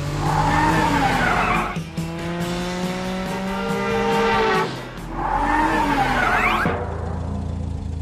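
Cartoon car sound effects: tyres screeching twice, with an engine revving up in between, over background music. The screeching stops shortly before the end, leaving only the music.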